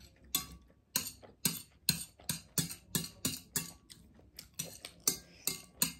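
A person chewing a mouthful of ramen noodles, heard close up. The chewing makes a steady run of short, sharp mouth clicks, about two to three a second.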